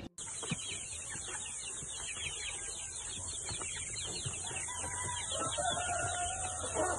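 A pen of young chickens peeping rapidly, with a few lower clucking calls from about five seconds in, over a steady high hiss.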